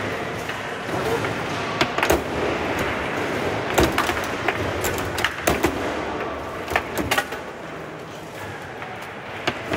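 Foosball table in play: irregular sharp knocks and clacks as the plastic men strike the ball and the rods knock against the table, some in quick pairs, over a murmur of voices.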